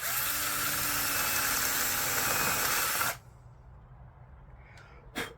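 Power tool with a self-centering bit boring a 3/4-inch bench dog hole in the work top, a loud, steady hissing cut lasting about three seconds that stops suddenly. A single sharp click follows near the end.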